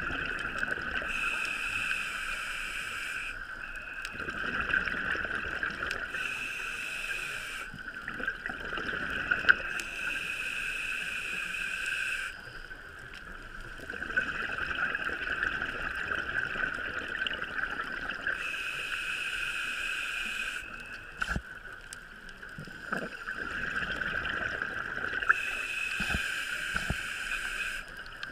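Scuba diver breathing underwater through a regulator: a hiss on each inhale alternating with a gurgling rush of exhaled bubbles, a breath every few seconds, over a steady high-pitched tone.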